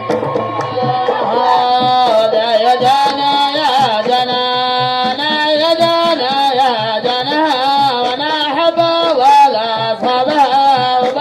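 Middle Eastern-style music: an ornamented, gliding melody over a steady hand-drum beat.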